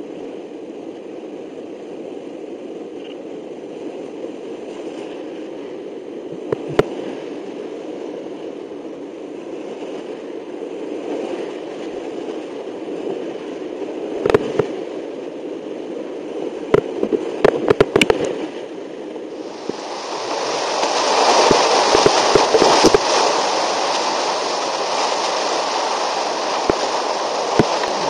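Class IV–V whitewater creek rushing around a kayak, heard through a helmet camera, with scattered sharp knocks. At first the rush sounds muffled; about two-thirds in it turns louder and brighter.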